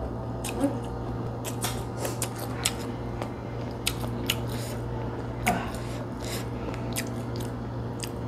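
Metal fork clicking and scraping against a glass food container as fried rice vermicelli is eaten from it: scattered sharp clicks, a few louder than the rest, over a steady low hum.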